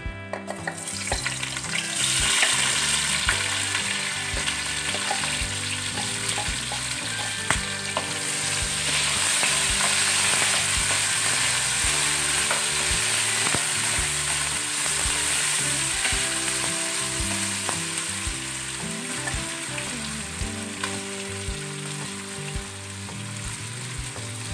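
Sliced onions hitting hot olive oil in an aluminium kadai. They sizzle up sharply about two seconds in, then fry steadily while a wooden spoon stirs them, with small scrapes and clicks against the pan.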